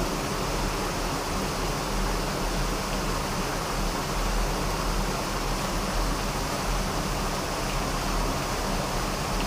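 Steady rushing noise with a faint low hum underneath, unbroken and without distinct events.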